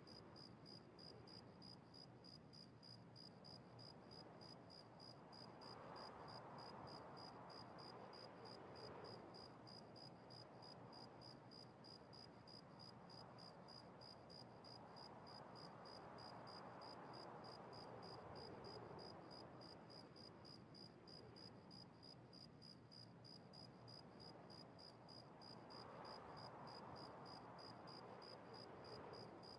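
Near silence: faint room hiss with a faint, even high-pitched ticking about two to three times a second.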